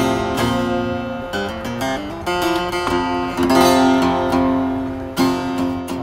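RainSong carbon-fiber jumbo acoustic guitar being strummed: a handful of chords struck and left to ring. It is played in the open air in sub-zero cold, where it lacks the big, boomy sound it has indoors.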